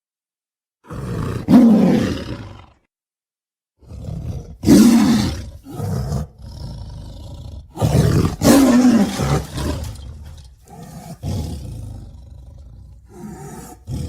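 Tiger roaring and growling: a string of separate roars, each a second or two long, with a brief silence between some of them.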